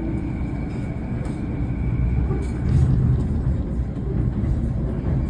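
Metro train running, a steady low rumble with a faint steady hum, swelling briefly about three seconds in.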